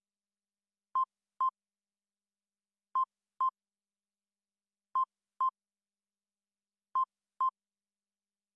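Electronic alert beeps from earthquake-warning software: short, identical double beeps, a new pair every two seconds, four pairs in all, signalling a detected earthquake.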